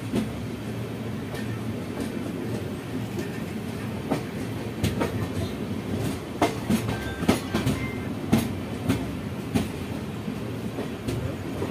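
Passenger train wheels running on rails: a steady low rumble with sharp, irregular clacks of wheels over rail joints, more frequent in the second half, as coaches pass close alongside on the next track.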